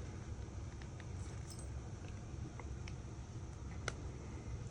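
Faint, scattered small clicks and taps of tools and phone parts being handled during a phone disassembly, over a steady low hum.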